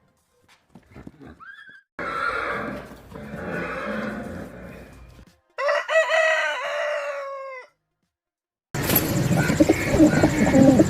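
A string of separate farm-animal sound clips cut together with silent gaps between them; the clearest is a rooster crowing, one call of about two seconds that falls away at its end, a little past the middle.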